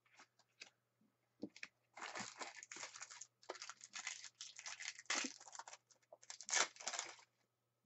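Match Attax trading cards being shuffled and slid against one another by hand: a few light clicks, then about five seconds of dense rustling and scraping.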